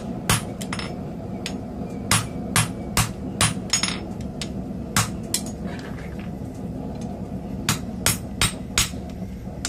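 Hammer blows on a red-hot steel block held in tongs on an anvil, forging a punch: about a dozen sharp strikes in quick groups with short pauses between, over a steady low hum.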